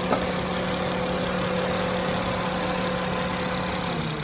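A 2010 Acura's engine idling steadily with the air conditioning switched on, its compressor not kicking on. There is a short click just after the start, and the engine note dips slightly near the end.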